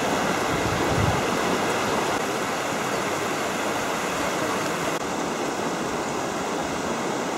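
Shallow mountain river rushing over rocks and boulders: a steady rush of water, with a soft low thump about a second in.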